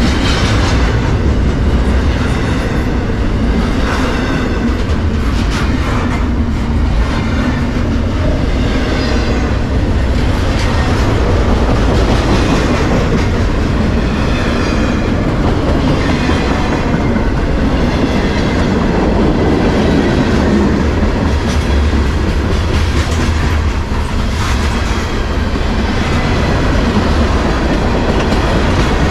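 Freight train cars rolling past close by: double-stack container well cars and then tank cars, a loud steady rumble of wheels on rail with repeated clicking as the wheels pass over rail joints.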